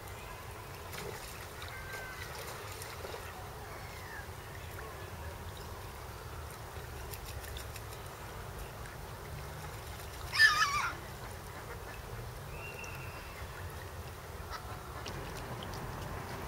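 Mallard ducks calling, with one loud, brief burst of quacking about ten seconds in and a few faint calls before it, over steady low background noise.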